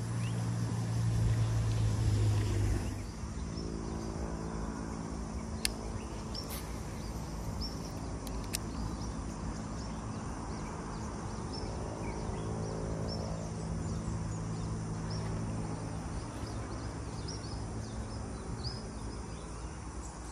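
Steady low hum with several pitches held together, with small birds chirping again and again over it and two sharp clicks.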